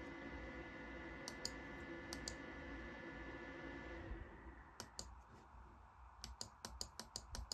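Computer mouse clicking: a few single clicks, then a quick run of clicks in the last few seconds. A faint steady hum lies under the first half and stops about four seconds in.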